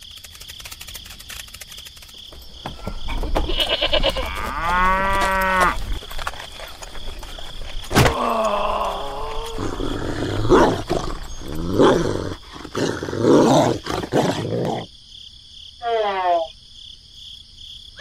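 Farm-animal call sound effects: several drawn-out, wavering calls one after another, cattle-like lowing among them, with a sharp click about eight seconds in.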